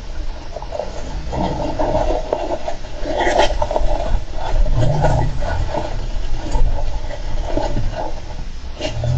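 Golden hamster scratching and scraping at close range, in quick irregular bursts with scattered sharp clicks.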